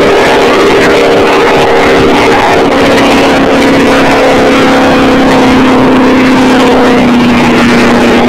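Jet boat engine running hard at cruising speed, about 60 mph, through open chrome exhaust headers: a loud, steady drone that holds its pitch.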